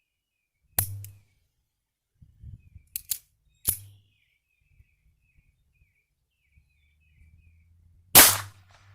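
Ruger LCP II Lite Rack semi-automatic pistol firing .22 LR rounds: about five sharp shots at uneven intervals, two of them in quick succession about three seconds in, the loudest near the end. Faint bird chirps underneath.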